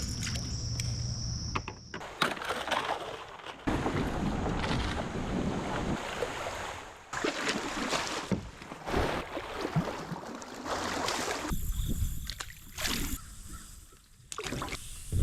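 Water sloshing and splashing around a kayak on a creek, with scattered knocks.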